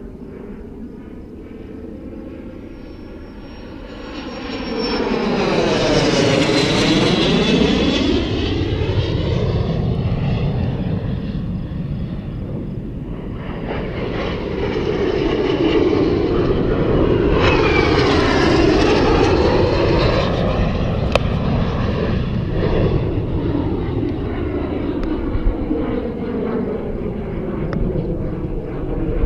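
Aerobatic display airplane's engine heard as the plane flies past twice. The sound swells to a loud pass about five seconds in, fades a little, and builds to a second loud pass around fifteen to twenty seconds in.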